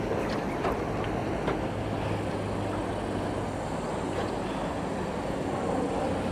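A steady low engine hum under a wash of wind and water noise.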